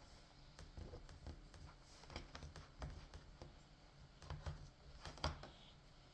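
Faint, irregular clicks and small pops of slime being pressed and stretched by hand, a few louder ones toward the end.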